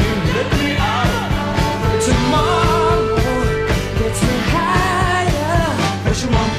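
Soundtrack music: a rock-style song with a singing voice over a steady drum beat and sustained low notes.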